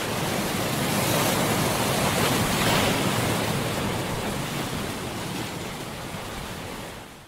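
Sea surf: an even hiss of waves washing, which swells early and slowly fades out near the end.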